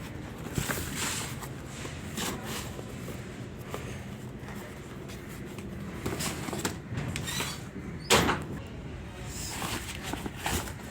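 Cardboard packaging being torn open and handled: intermittent rustling, scraping and small knocks, with one sharp knock about eight seconds in.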